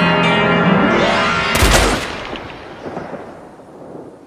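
Blues-rock music cuts off about a second and a half in, as a loud revolver gunshot goes off and then fades away in a long echo.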